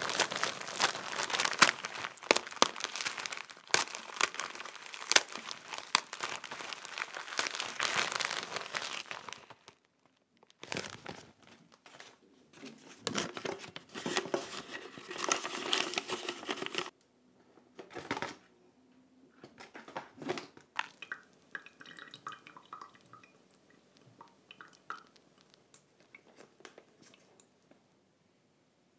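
Dry pieces of fu (baked wheat gluten) being crushed by hand inside a plastic zip-top bag: dense crinkling of the plastic and crunching of the pieces for about nine seconds. Then, in separate bursts, the rustle of a paper coffee filter being folded and set into a dripper, followed by faint handling sounds.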